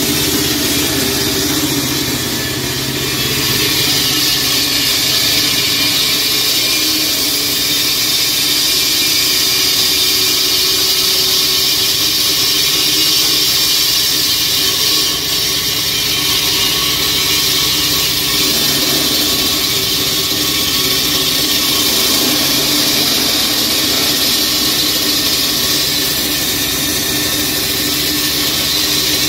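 Petrol-engined walk-behind concrete floor saw running steadily, its blade cutting into a concrete floor slab, engine hum under a loud, even grinding hiss. The level dips briefly about halfway through.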